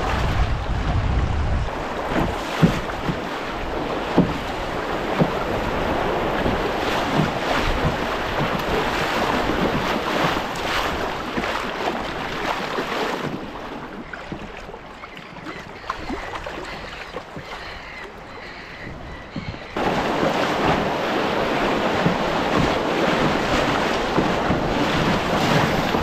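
Fast river water rushing and splashing around a canoe on the move, with wind buffeting the microphone in the first couple of seconds. It drops quieter about halfway through, then comes back up suddenly near the end.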